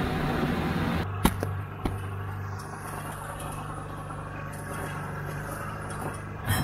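Vintage snowmobile's two-stroke engine running. Loud riding noise cuts about a second in to a quieter steady drone with two sharp clicks, then turns loud again at the very end.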